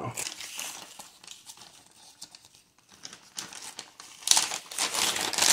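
Plastic MRE flameless ration heater bag crinkling as it is handled: crinkles at the start, a quieter stretch in the middle, then louder crinkling near the end.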